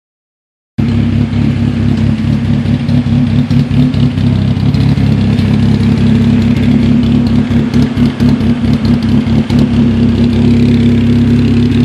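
Chevrolet Cobalt SS's four-cylinder engine at a rough idle, starting about a second in. The running is uneven, with repeated dips and stumbles.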